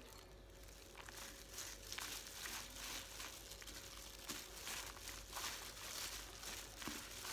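Gloved hands mixing a fermented tea-leaf salad with fried beans and peanuts on a banana leaf: thin plastic gloves crinkling and the crunchy ingredients rustling in repeated strokes.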